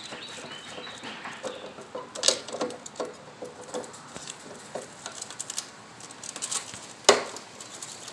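Small plastic clicks and scrapes from twisting a bulb socket in a car headlight housing, with a sharp click a little over two seconds in and a louder one near the end.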